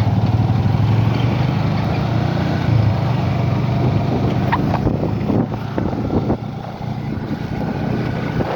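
Motor vehicle engines running with a steady low hum. A few short sharp knocks come about halfway through.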